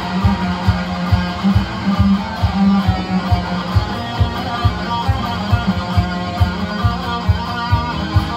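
Electric guitar played along with a disco backing track. A steady four-on-the-floor kick drum thumps about twice a second under the guitar part.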